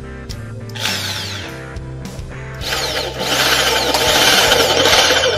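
Hoyoma impact drill boring into plywood in impact mode: a short burst that winds down about a second in, then running loud and steady from about two and a half seconds on.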